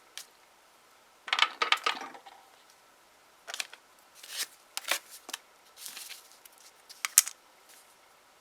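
Nail-stamping tools being worked: a run of small clicks and taps with several short rasping scrapes, as polish is scraped across a metal stamping plate and picked up with the stamper.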